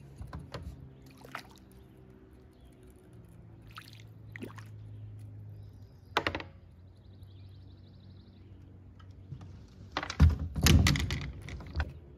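Scattered knocks and thuds, with a loud cluster of several knocks near the end, over a faint steady low hum.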